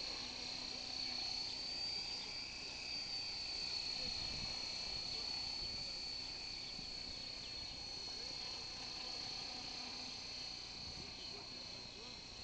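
Electric RC helicopter (Esky Honey Bee King 3) flying, its motor and rotor giving a steady high-pitched whine that wavers slightly in pitch, with wind buffeting the microphone.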